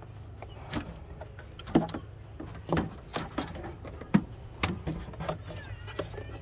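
Rubber and plastic engine air intake duct being worked loose and pulled off the throttle body: a string of irregular knocks, creaks and rubbing, about one a second.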